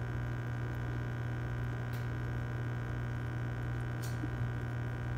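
Steady low hum of running aquarium equipment, with two faint ticks about two and four seconds in.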